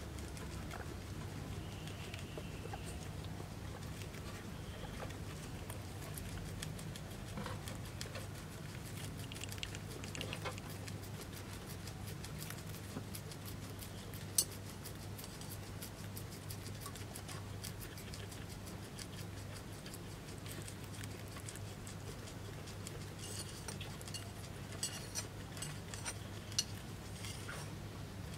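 Guinea pig chewing corn leaves: a rapid, continuous run of small crisp clicks, with a few sharper clicks about halfway and again near the end.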